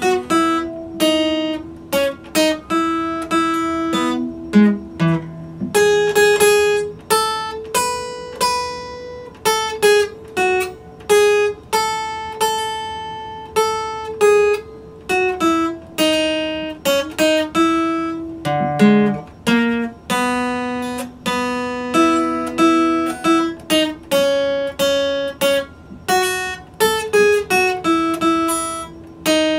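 Solo Epiphone acoustic guitar played without accompaniment: plucked notes and chords follow one another in a flowing melody, each ringing and dying away before the next.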